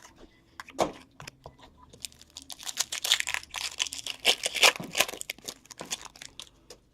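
Hockey card pack wrapper being torn open and crinkled by hand, a dense crackling from about two seconds in to near the end, after a few light clicks.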